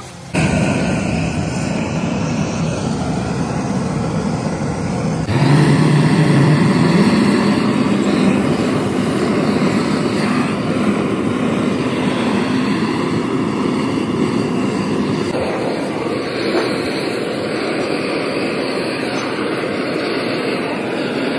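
Loud, steady workshop machinery noise from work on a tractor water pump. It starts abruptly, jumps louder about five seconds in and changes again about fifteen seconds in.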